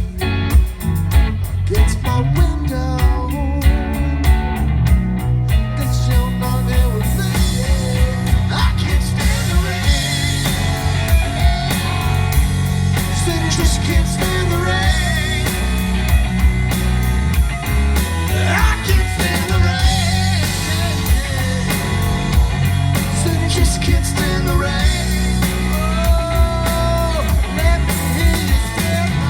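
Live rock band playing an instrumental stretch of a song: a steady drum and bass beat with melodic lines sliding over the top.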